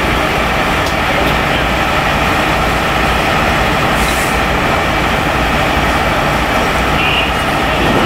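Diesel engines of parked fire engines running steadily.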